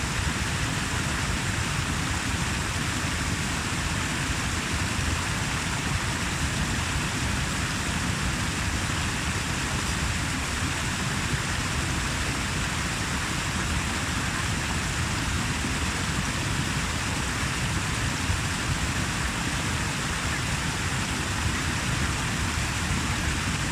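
Natural water rushing steadily: an even, unbroken noise.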